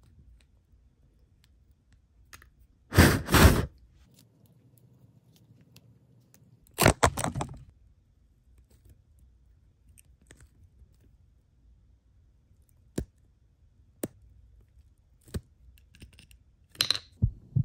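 A small clear plastic toy container and its crumbly miniature cereal-bar filling being handled by fingers. Two loud bursts of crackling and scraping come about three and seven seconds in, then a few sharp clicks of plastic tapping near the end.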